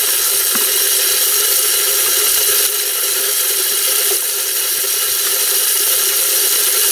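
Automatic game feeder's electric spinner motor running at full speed with a steady hum, flinging grain that scatters with a continuous hiss, on a 10-second test cycle.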